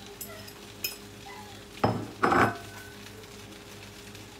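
Dishes-and-pans clatter: a ceramic plate and a serving utensil knocking against a frying pan and a countertop. There is a small click about a second in, then two loud clatters about half a second apart around two seconds in, the second ringing briefly, over a steady low hum.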